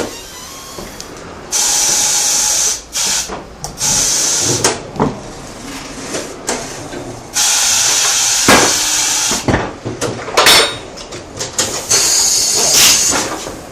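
Compressed air from tyre-shop equipment hissing in four bursts of about a second each, with metal clanks and knocks between them.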